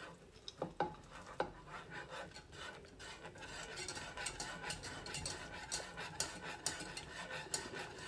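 Wire whisk stirring Alfredo sauce in a small saucepan, its tines ticking and scraping against the pan in a quick, uneven rhythm as shredded parmesan is whisked into the butter and cream. A few light knocks come in the first second or so, and the whisking ticks grow denser from about halfway in.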